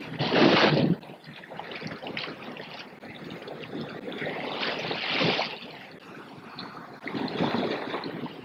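Sea water rushing and washing along the hull of a sailing ship under way, with wind. It comes in surges, loudest in the first second and again about five and seven and a half seconds in.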